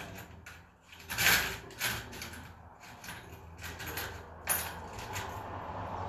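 Rummaging: several short scrapes and knocks of things being moved about while searching for a drill bit, the loudest about a second in.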